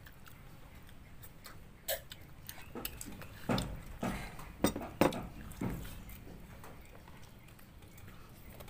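Clinks and knocks of dishes and a drinking glass on a table during a meal: a single click about two seconds in, then a cluster of louder knocks in the middle.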